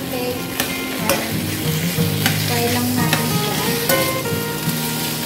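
Chopped vegetables stir-fried in a stainless steel wok: steady sizzling, with a metal spatula scraping and clinking against the pan every second or so.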